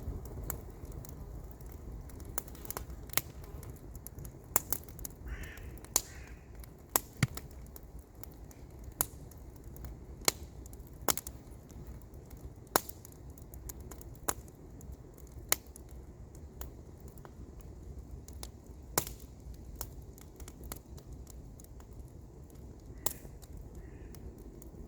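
Wood campfire crackling, with sharp irregular pops and snaps of burning wood over a steady low rumble. A bird calls briefly twice, about five seconds in and near the end.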